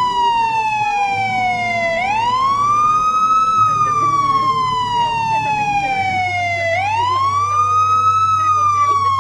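Police siren sounding a wail: the pitch climbs quickly, then falls slowly, rising twice about five seconds apart. A low steady hum runs beneath it.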